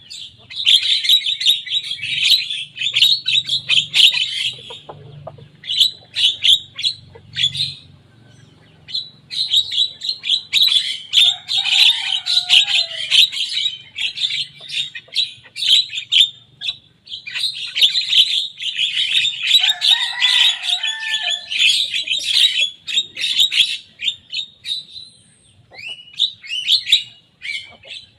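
Young Javan myna singing hard: long bouts of fast, dense chattering notes, with a few lower gliding whistles mixed in, separated by short pauses.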